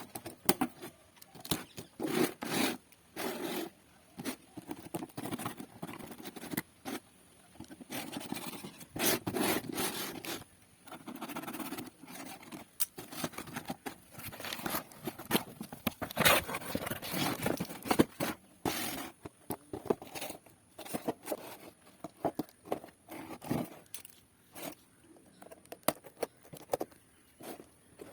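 Irregular scraping and rustling with scattered clicks as a tripod and its packaging are handled and unpacked, busiest about a third of the way in and again near the middle.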